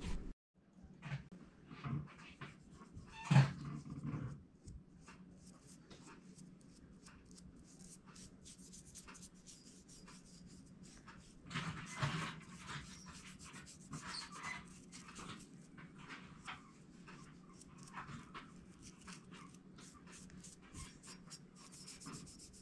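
Faint scattered clicks and light rubbing from handwork on a steel claw hammer head as cold gun-blue is dabbed onto it with a cotton swab. A few louder knocks and a short low sound come in the first few seconds.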